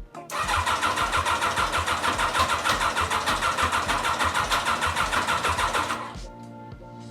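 Suzuki Grasstracker's single-cylinder four-stroke engine running steadily at idle, its exhaust pulsing evenly and quickly, after the oil change. About six seconds in it gives way to background music.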